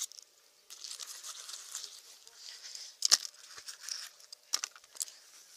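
Close rustling and crinkling handling noise as rope and gear are moved about in grass, with a sharp click about three seconds in and two more near the end.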